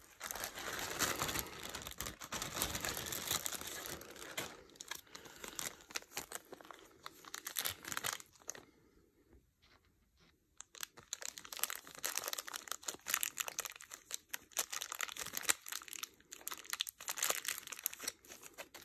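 Clear plastic bags and bubble wrap crinkling and rustling in the hands as a small item is unwrapped. There is a quieter pause of about two seconds near the middle.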